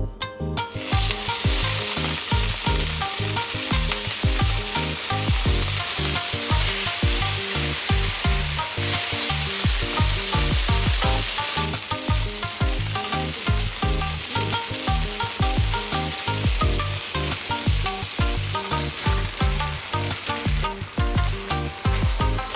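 Food frying in hot oil in a pan, a dense sizzle that starts about a second in and eases slightly near the end, over background music with a steady beat.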